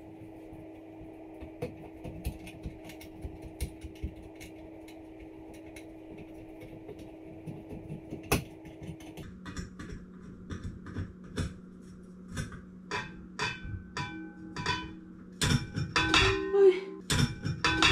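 Background music with a steady beat: quiet at first, the tune changes about halfway through, and it grows louder near the end.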